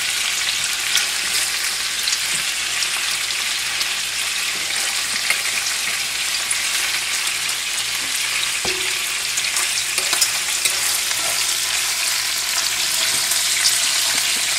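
Chicken pieces browning in hot oil in a stainless-steel skillet, a steady sizzling hiss, with a few light clicks of a fork against the pan as pieces are lifted out.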